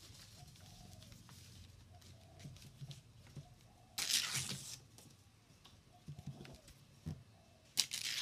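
Stiff ti leaves rustling and crackling as they are handled and laid tip to tip, with a louder rustle about four seconds in and another near the end.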